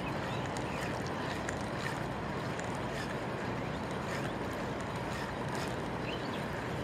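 Steady rushing wind noise on the microphone, with a few faint short high chirps here and there.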